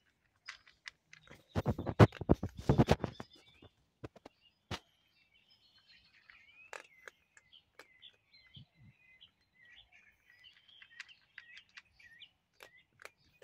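A cat crunching dry kibble close up: a dense run of loud crunches about two seconds in, then scattered lighter crunches. Small birds chirp in the background.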